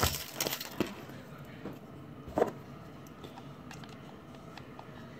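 Quiet handling noises: small clicks and rustles as a plastic toy cup is turned and fiddled with in the hands, with one louder click about two and a half seconds in.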